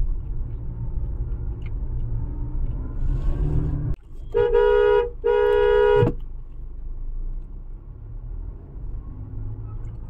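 Car driving with a low road and engine rumble, heard from inside the cabin. A little past the middle the horn sounds twice: two steady honks of under a second each, close together. They prod a car ahead that is slow to pull away at a green light.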